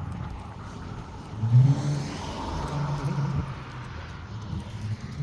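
A car driving past with its engine accelerating. It comes in loudest about a second and a half in, with a rising engine note and tyre noise that swells and then fades.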